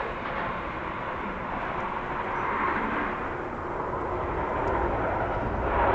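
Outdoor background noise: a steady rushing hum that swells about two and a half seconds in and again near the end.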